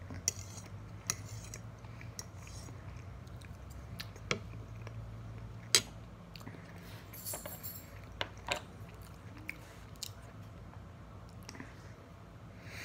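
Close-up chewing and mouth sounds of a person eating a leftover meal of chicken and baked potato, with scattered sharp clicks of a fork against the plate, the loudest a little under halfway through.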